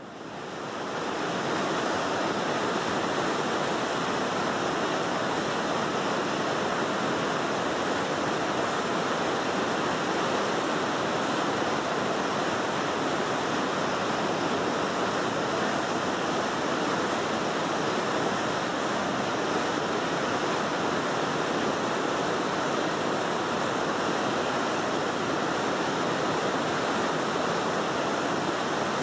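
Steady rush of river water pouring through the headworks' weir gates, fading in over the first second or two.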